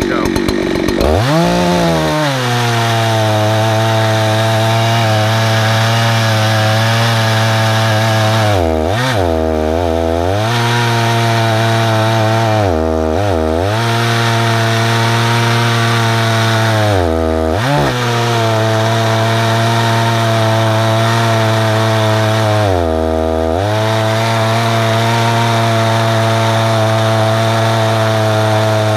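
Husqvarna 288 two-stroke chainsaw in an Alaskan chainsaw mill running at high revs as it rips lengthwise through a tulip poplar cant. The engine speeds up about a second in, then holds a steady high note, sagging briefly four times under load and recovering each time.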